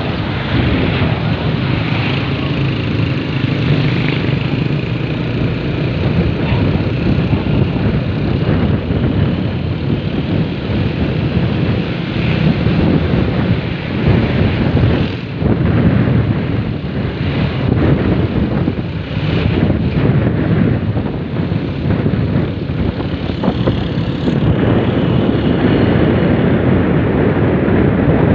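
Wind rushing over the microphone of a moving motorcycle, with the steady hum of a Honda XRM 125's single-cylinder four-stroke engine underneath as it cruises along.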